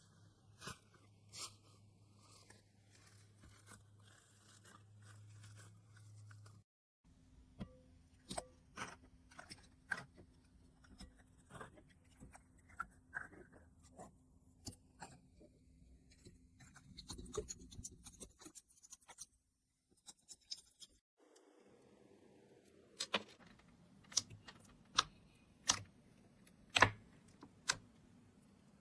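Slime being squeezed and pressed, giving sharp crackling clicks and snaps at irregular intervals, faint overall, with the loudest snaps near the end.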